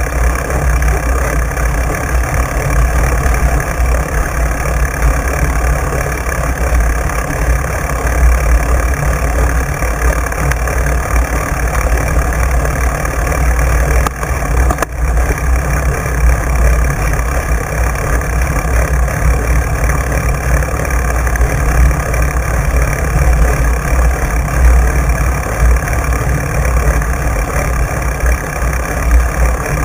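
Wind buffeting a bike-mounted camera's microphone, with the knobby fat tyre rolling over wet sand and shells: a loud, steady low rumble with a brief dip about halfway.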